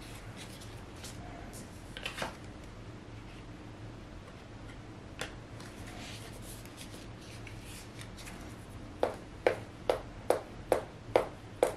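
Plastic trading-card sleeve being handled as a card is slid into it, with light rustling and then a run of about seven sharp taps or clicks near the end.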